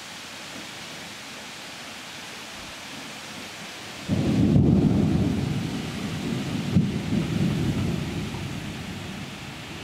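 Thunder: a sudden low rumble breaks in about four seconds in, swells again with a sharper clap a few seconds later, then rolls away. Under it is a steady hiss of rain.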